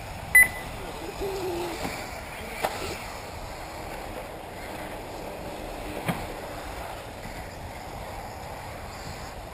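A single short high beep from the race's lap-timing system about half a second in, over steady outdoor noise with a couple of faint knocks later on.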